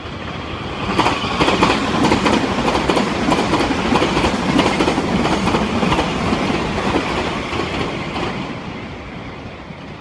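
Meitetsu express electric train passing at speed, its wheels clattering loudly over the rail joints in quick repeated clicks. The sound swells about a second in and fades away near the end as the train goes by.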